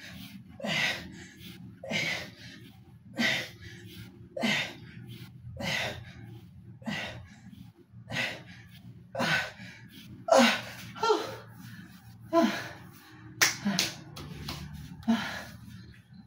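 A man's forceful breaths and grunts as he does sit-ups, one hard exhale with each rep, about one every second and a quarter, over a steady low hum.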